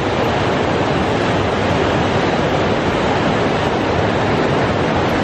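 Fast mountain river rushing over rocks, a steady loud rush of white water; the river is running high with snowmelt.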